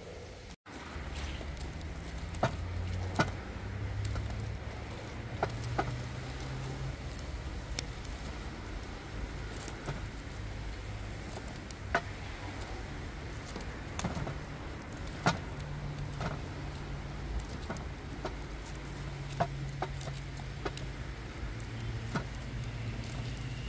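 Wood fire of logs and embers crackling, with sharp pops every second or so over a low steady rumble.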